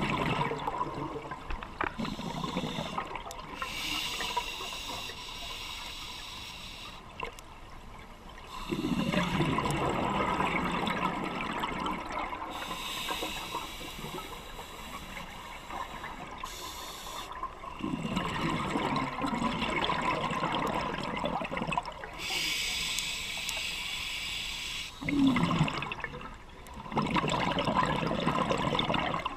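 Scuba diver breathing through a regulator underwater: a hissing inhale through the demand valve, then a long bubbling exhale, repeating about every eight to nine seconds.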